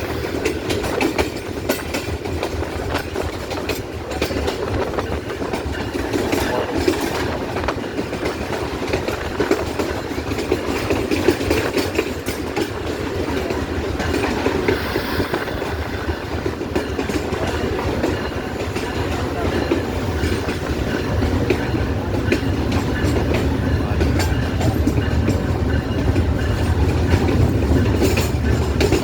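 A passenger train hauled by a GEU-20 diesel-electric locomotive running along the track: a steady rumble, thick with quick clicks from the wheels going over the rails.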